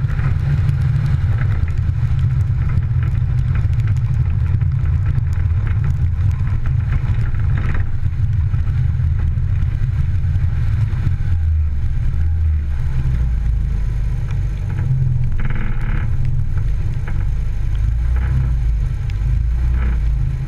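Rally car driving fast on a gravel stage: engine running with gravel noise, heard from a camera outside the car with heavy wind rumble on the microphone. About eleven seconds in the sound sinks lower as the car eases off.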